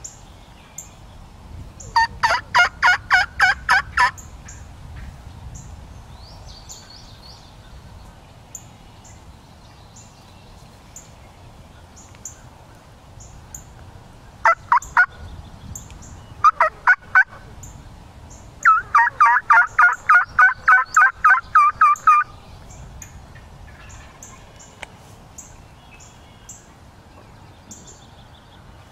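Wild turkey calls in loud runs of quick, evenly spaced notes: one run about two seconds in, a few notes around fifteen seconds, and a longer run at about nineteen seconds. Small birds chirp faintly in between.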